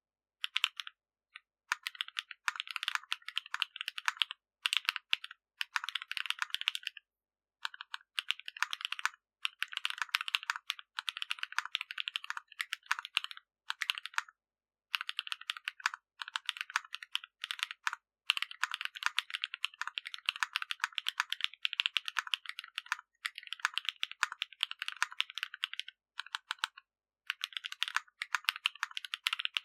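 Fast, continuous typing on a Zoom75 mechanical keyboard with Krytox-lubed HMX Cheese switches, PBT keycaps and a carbon-fibre plate, broken by a few brief pauses.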